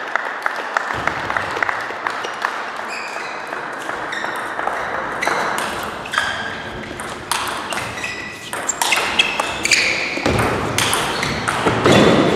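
Table tennis rally: the celluloid ball clicks off the bats and bounces on the table in a quick, steady series of sharp ticks, with a louder stretch of noise near the end as the rally finishes.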